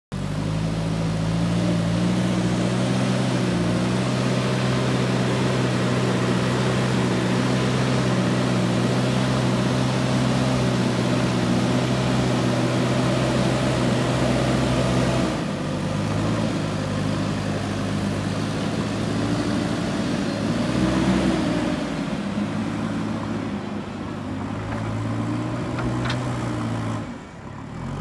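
JCB 3DX backhoe loader's diesel engine running steadily under load as its front loader bucket pushes and levels soil. The engine note drops and eases about halfway through.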